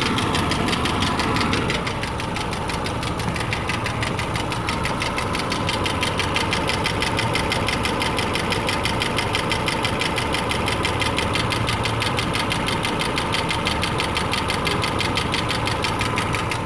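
2008 Subaru Legacy 2.5i's 2.5-litre flat-four idling with a rapid, even ticking from the passenger side. The engine is setting a cylinder 3 misfire code, and the owner wonders whether the tick is a spun rod bearing, a lifter or valves needing adjustment.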